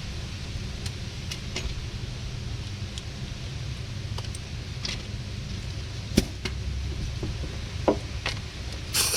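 Scattered light clicks and taps of hand work on a car's front hub and its wheel-speed sensor wiring, over a steady low hum, with a louder clatter at the very end.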